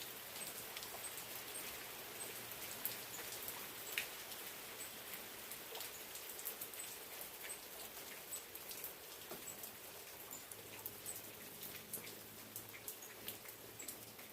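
Steady rain falling, with scattered individual drops ticking sharply on nearby surfaces.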